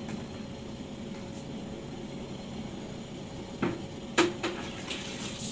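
Steady low kitchen hum with a few short metal clinks, from utensils against a large aluminium cooking pot, about three and a half to four and a half seconds in.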